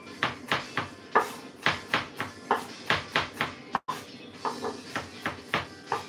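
Knife chopping garlic on a wooden cutting board: a run of sharp knocks at about three a second, with a short break a little before the middle.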